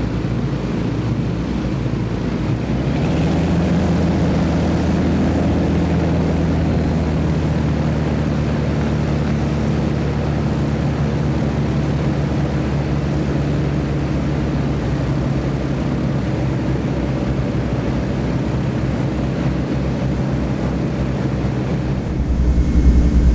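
Avro Shackleton's Rolls-Royce Griffon V12 piston engines running on a ground run, turning contra-rotating propellers with a steady hum. About three seconds in the note thickens and gets a little louder, and near the end the sound becomes louder and deeper.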